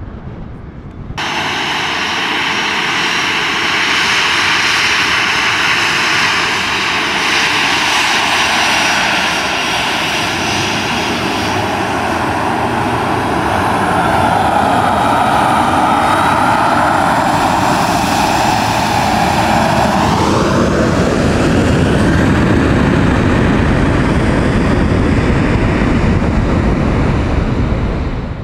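Airliner's engines running loud and steady at close range. About twenty seconds in they spool up to take-off thrust, with a rising whine and a heavy low rumble.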